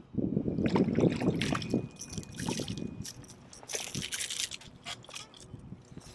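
Water sloshing and trickling around a kayak, then a run of small splashes, drips and clicks as a caught fish is handled and tossed back into the water.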